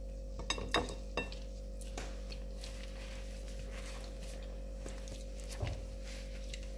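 A few light clinks and handling clatters, clustered in the first second or so and again once near the end, as things are set down and a cloth is handled, over a steady low electrical hum.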